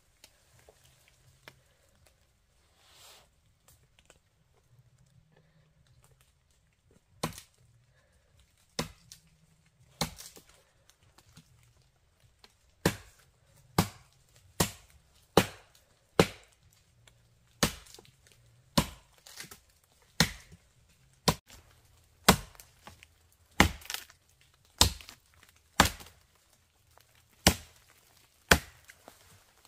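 Someone chopping wood with a blade: sharp single strikes about once a second, starting about seven seconds in and mostly growing louder.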